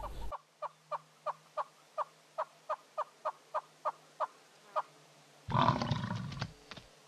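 Wild animal calls: a run of short sharp notes, about three a second. About five and a half seconds in comes a louder, deeper call lasting about a second.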